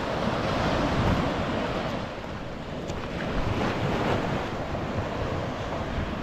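Ocean waves washing along the shore, swelling up twice, with wind buffeting the microphone.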